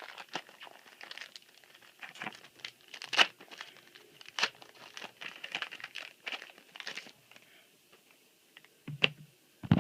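Foil booster pack wrapper crinkling and tearing as it is opened by hand, in irregular rustles for about seven seconds, then a couple of short knocks near the end.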